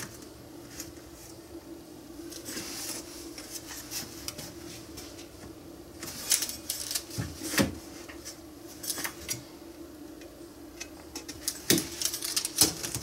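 Scattered light clinks and taps of hand tools being picked up and set down on a workbench while a plate is measured and marked out, over a steady low hum.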